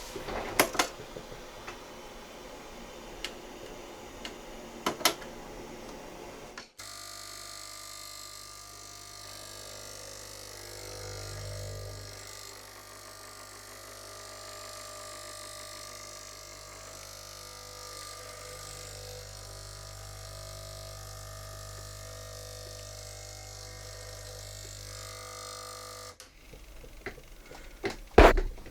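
KRUPS XP320 espresso machine's pump running with a steady electric hum for about 20 s. It starts and stops abruptly, with a few clicks and knocks before and after. No water is coming through, and a blockage from scale is suspected.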